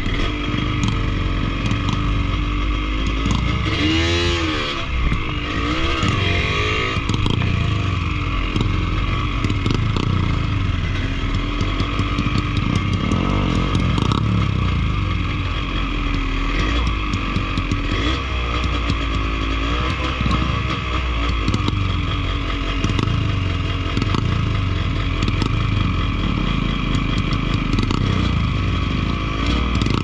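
Yamaha DT125's single-cylinder two-stroke engine, running with an open carburettor, blipping its revs up and down every second or so as the bike crawls over river boulders, with clatter of the bike over the rocks.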